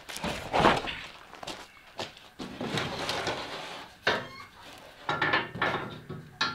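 A hard plastic ski widener being handled and pressed onto a snowmobile ski: irregular knocks and clatter, a scraping stretch of plastic against plastic and metal in the middle, and several sharp clicks in the second half.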